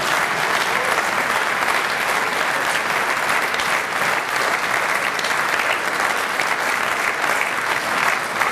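Audience applauding: many hands clapping in a steady, sustained round of applause.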